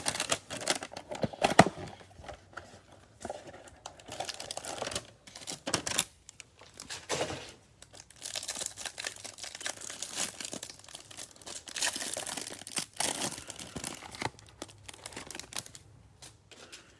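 Cellophane wrapping on a stack of trading cards being torn open and crumpled, crinkling in irregular bursts that die away near the end.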